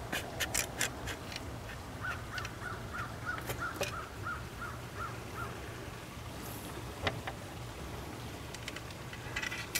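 Light clicks and taps of steel bolts and aluminium glazing-bar extrusion being handled, mostly in the first second with a few later. A bird calls in the background in a quick run of about a dozen short notes, about four a second, from about two seconds in.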